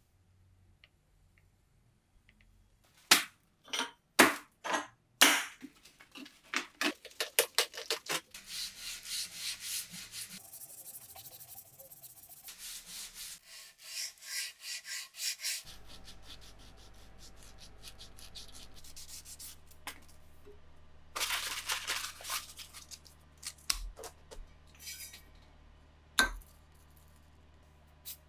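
Hand work on a steel bayonet blade: a few sharp, loud scraping strokes about three seconds in, then quick repeated rubbing strokes of a cloth along the metal, easing off midway, with another short burst of rubbing later.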